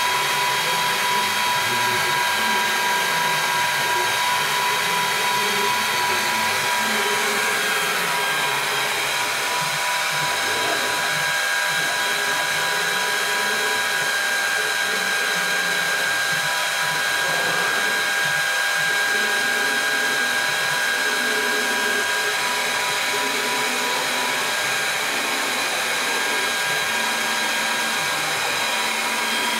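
CNC milling machine running a G-code job: a steady high whine from the spindle, under lower stepper-motor tones that keep shifting in pitch as the axes move.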